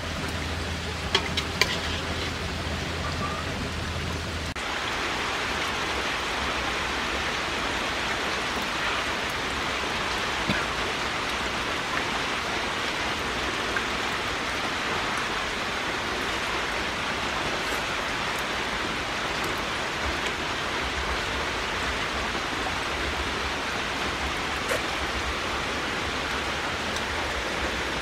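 A steady, even hiss of noise, like falling rain. A low hum and a few clicks are heard at the start, and they stop abruptly about four and a half seconds in.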